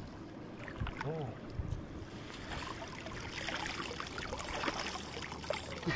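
Water splashing and dripping as a wet cast net is hauled up out of a shallow river, with water streaming off the mesh. It grows louder and busier about two seconds in, as the net comes out of the water.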